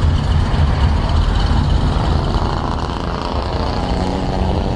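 Motorcycle engine idling: a steady low rumble.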